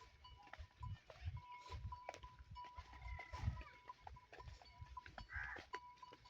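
Herd of Tharparkar goats on the move: a thin bell tinkles on and off, and a goat bleats briefly about five seconds in, with a fainter call around three seconds, among scattered hoof clicks and low thumps.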